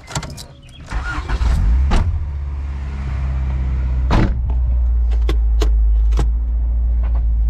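Car engine started with the key: it catches about a second in and settles into a steady idle. A few sharp clicks and knocks come from inside the cabin over the idle.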